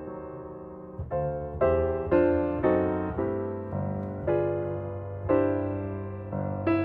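Background music: a gentle solo piano melody, single notes struck about every half second and left to ring and fade.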